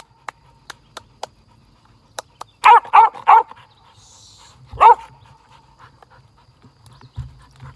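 Dog barking: three quick barks about three seconds in, then a single bark about two seconds later.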